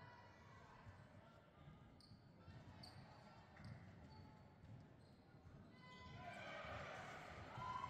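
Faint gym sounds: a basketball bouncing on a hardwood court and a few short sneaker squeaks, with voices rising about six seconds in.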